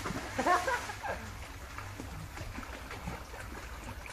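Water splashing in a swimming pool as swimmers play, with a short call from a voice about half a second in. A steady low hum runs underneath.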